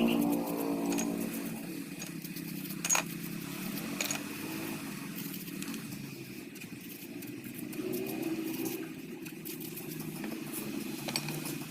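An engine running close by, loudest at the start and falling back within about a second to a steady low hum, with a few sharp metallic clicks.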